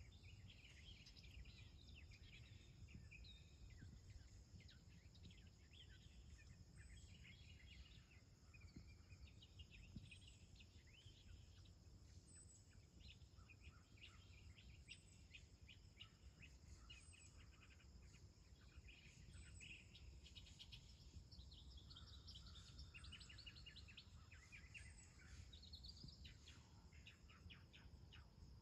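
Near silence with faint outdoor ambience: small birds chirping in quick series and a steady high insect drone over low background noise.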